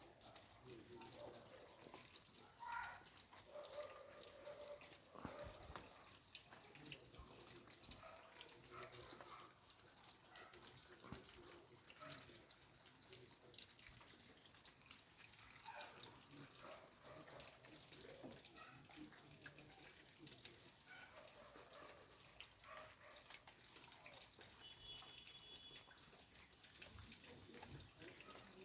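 Faint rain falling, heard as a dense, even scatter of small drips.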